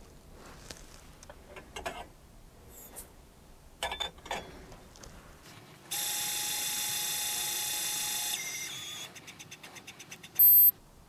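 Lyman Gen6 powder dispenser throwing a charge of stick powder. Its brass pan clinks as it is lifted off and set back on the scale, then the dispensing motor whirs steadily for about two and a half seconds. It slows into a rapid ticking trickle, and a loud electronic beep near the end signals that the charge has reached its target weight.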